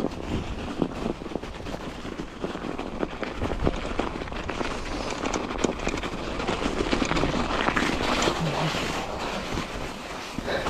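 Old Norco dirt jumper bicycle ridden over a trampled-snow path: its knobby tyres crunching through packed snow and the bike rattling over the bumps, a steady run of small clicks and knocks.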